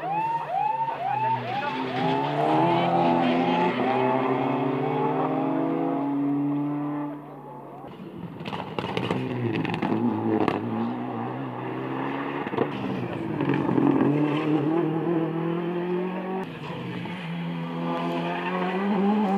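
Rally cars passing one after another, their engines revving hard and rising and falling in pitch through the gears. Near the start there is a fast, evenly repeating rising-and-falling wail, and a cluster of sharp cracks comes about eight to eleven seconds in.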